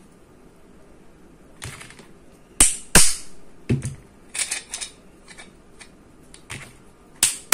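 Metal parts of a small 775 DC motor being handled during reassembly: scattered sharp clicks and knocks, the two loudest close together a little before the third second.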